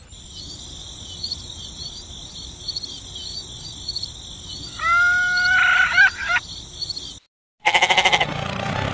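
Steady high-pitched insect chirring with a fine, even pulse, as in a countryside ambience track, with a short animal call of several rising notes about five seconds in. It cuts out briefly and loud music with a beat starts near the end.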